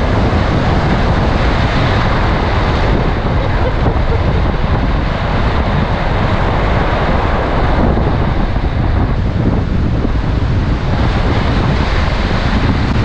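Wind blowing hard on the microphone over steady ocean surf: a loud, unbroken noise.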